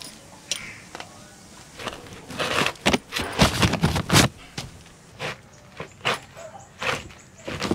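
Raw jackfruit being hacked and split with a large curved chopping knife: a string of dull chops and knocks, densest about two to four seconds in, then single strokes at a steady pace.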